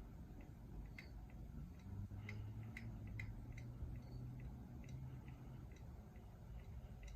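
52-inch Hampton Bay Huntington II ceiling fan running on medium speed: a quiet low rumble with scattered, irregular light ticks, and a low hum from about two seconds in until about six seconds in.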